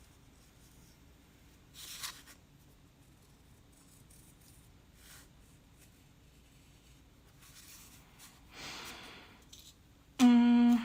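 Quiet room with three soft, brief rustles of handling. Near the end a person starts humming a steady, loud note.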